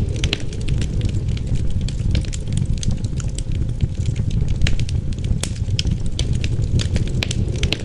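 Wood fire crackling and popping in a fireplace, with sharp irregular pops over a steady low rumble of wind and flames.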